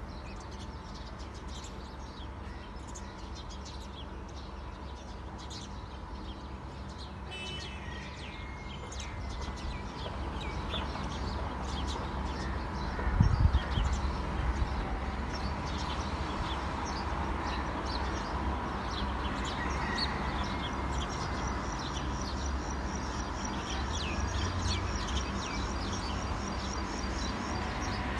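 Small birds chirping and twittering, scattered calls throughout, over a steady low outdoor rumble. A single low thump about thirteen seconds in is the loudest sound.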